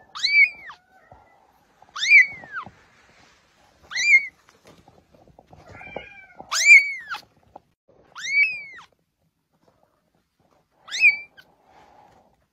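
Young kitten mewing: six high, thin mews about two seconds apart, each rising then falling in pitch, with a longer pause before the last.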